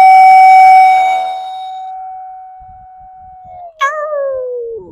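A wolf-shaped clay whistle blown to imitate a wolf's howl: one long, steady, high note that fades and then slides down in pitch toward the end, with a higher falling note joining it about four seconds in.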